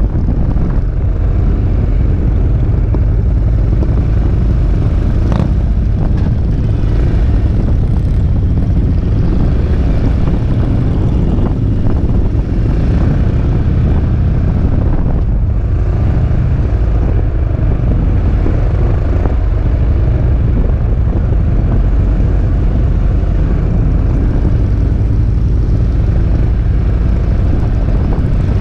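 Peugeot Métropolis three-wheeled scooter's single-cylinder engine running steadily at low speed, heard from the rider's seat as a constant low drone and rumble with road noise.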